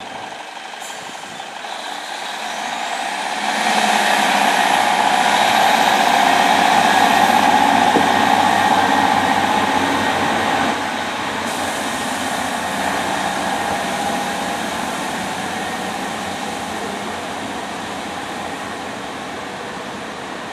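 Class 150 Sprinter diesel multiple unit 150266 pulling away from the platform, its underfloor diesel engines working as it accelerates. The sound builds over the first few seconds, with a high whine that rises then holds. About eleven seconds in the level drops sharply and the whine cuts off, then the sound slowly fades as the unit draws away.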